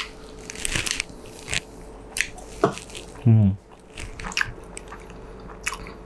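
A person chewing and eating, with scattered small mouth clicks and light rustles. About three seconds in the eater gives a brief hum.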